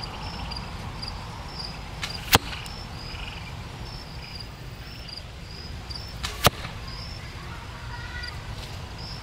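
Two arrows from a compound bow striking a foam block target about four seconds apart, each a sharp hit with a fainter click just before it.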